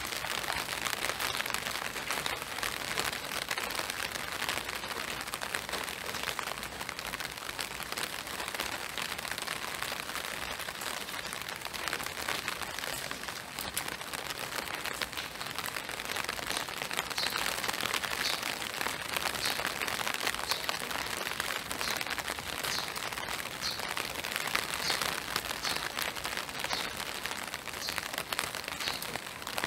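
Steady spring rain falling through woodland onto a wet boardwalk: an even hiss of drops.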